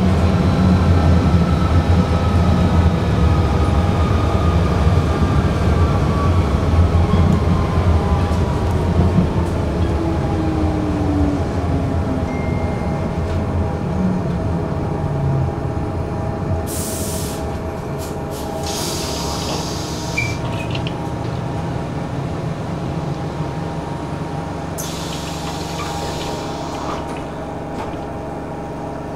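Electric tram slowing down: the motor whine falls steadily in pitch and the running rumble fades over about fifteen seconds. In the second half come a few short hisses, one group about two-thirds of the way in and another near the end.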